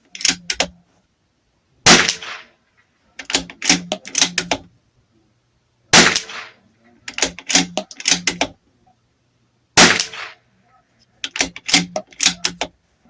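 Bergara B14R .22 LR bolt-action rifle firing SK Pistol Match rounds: three sharp shots about four seconds apart, each shot with a short echoing tail. Between the shots come clusters of quick mechanical clicks as the bolt is worked to chamber the next round.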